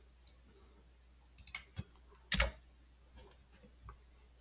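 Faint computer clicks while working in Word: a few light ticks, one sharper click about two and a half seconds in, then a couple more light ticks.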